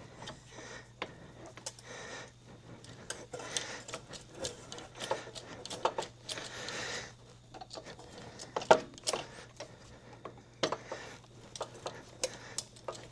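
Irregular metallic clicks, knocks and short scrapes of hand tools and suspension parts being worked while a front coil spring is compressed, with a sharp knock about nine seconds in.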